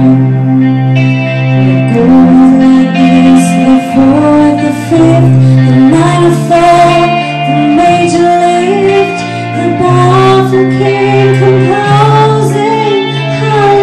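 A woman singing a slow song into a corded microphone through an amplifier, over guitar-led accompaniment with steady bass notes.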